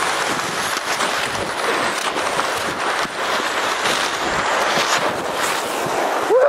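Steady hissing scrape of sliding fast down an icy snow crust, with wind buffeting the microphone. A short cry that rises and falls in pitch near the end, after which the sliding noise stops.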